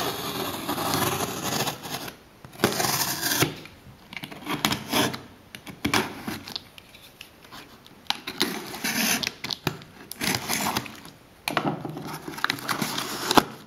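Box cutter slicing through packing tape along the seam of a cardboard box in several separate strokes, with scraping and rubbing on the cardboard.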